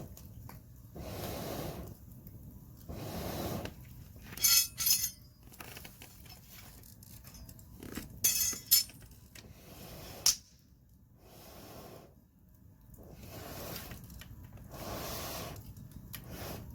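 Hard objects clinking at a campfire: two short clusters of sharp, bright clinks about four and eight seconds in, and a single sharp knock about ten seconds in, over soft rushes of noise that come and go.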